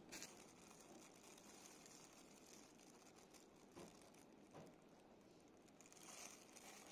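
Faint crinkling and rustling of a clear plastic bag wrapped around a bread bun as it is handled, with a few soft crinkles standing out in the second half.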